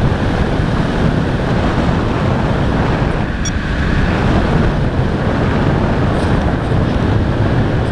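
Strong wind buffeting the microphone: a steady, loud rushing noise, heaviest in the low end.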